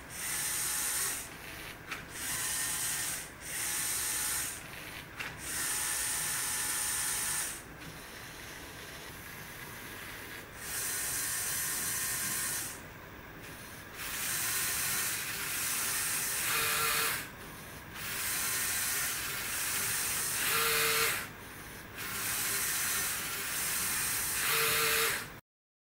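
LEGO SPIKE Prime motors and gear train of a brush-pen drawing machine whirring in bursts of a second or two, separated by short pauses, as the machine draws its pattern.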